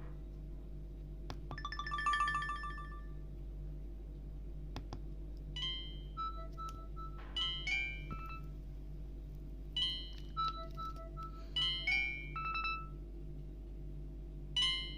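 Alcatel OneTouch 2005D ringtones played on a Samsung Ch@t 357 mobile phone's speaker. A short trilling electronic tone sounds about two seconds in; from about five seconds a short melody of beeping synthesized notes begins and repeats about every four seconds, over a steady low hum.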